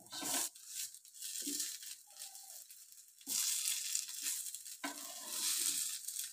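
Potato-and-poha cutlets sizzling as they shallow-fry in a little oil on a dosa tawa, while a spatula scrapes under them and turns them over. The sizzle comes in surges, loudest about three and five seconds in.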